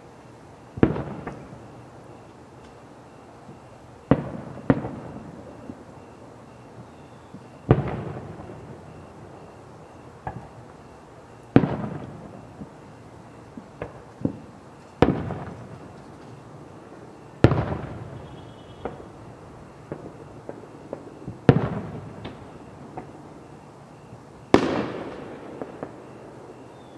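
Fireworks bursting at a display: about ten sharp booms, spaced every few seconds, each followed by a rumbling echo that dies away.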